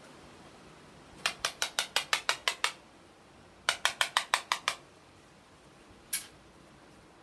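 Rapid light taps of a thin stick on a glass-fronted sand art frame: two quick runs of sharp clicks, about ten and then about eight at roughly seven a second, followed by one single tap near the end.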